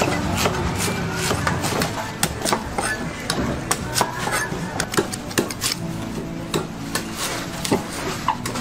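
Long knife cutting and shaving the husk of green coconuts: a run of irregular sharp chops, knocks and scrapes, over a steady low hum.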